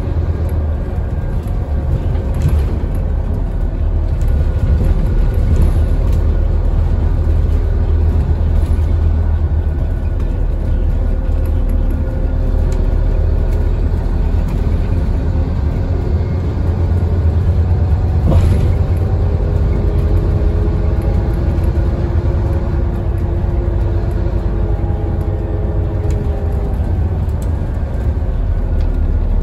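Scania N230UD double-decker bus heard from inside while under way: a steady low diesel rumble, with a whine from its engine and ZF automatic gearbox that rises and falls in pitch as the bus speeds up and slows. A single sharp knock comes a little past halfway.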